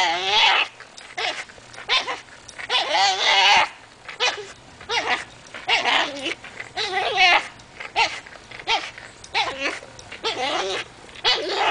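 French bulldog making a string of strained, wavering whines and grumbles through clenched teeth as it hangs from a rope toy, about one or two a second, a few of them drawn out.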